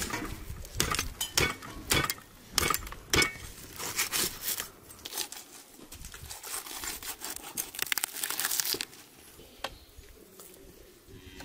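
Irregular crinkling and crackling with sharp clicks, densest from about six to nine seconds in, then quieter.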